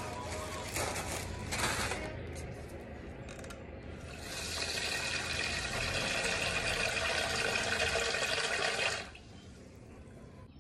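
Dry rice poured from a plastic bag into a plastic bowl, with the bag rustling. Then, about four seconds in, a tap runs water into the bowl for about five seconds and shuts off suddenly.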